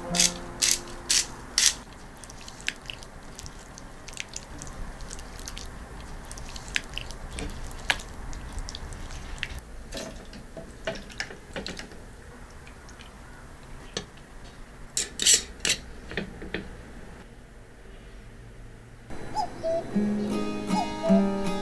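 A run of sharp clicks and taps over a low steady hum, with another cluster of clicks about fifteen seconds in. Acoustic guitar music comes in near the end.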